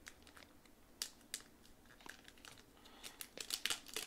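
Foil wrapper of a Digimon card game booster pack crinkling as it is handled and torn open, in quick scattered crackles that get busier near the end.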